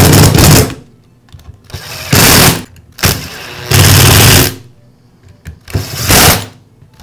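Power screwdriver driving screws into a plastic tool housing in four short bursts, each under a second long and about a second and a half apart.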